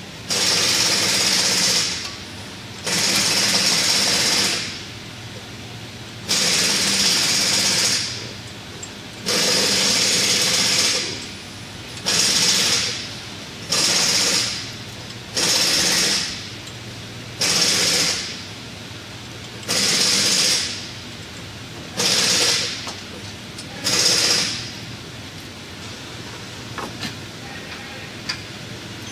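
A powered wrench runs in about eleven short bursts of one to two seconds each, the later bursts shorter, as it undoes the bolts holding the front wheel hub bearing to the steering knuckle. The bursts stop a few seconds before the end, leaving faint clicks.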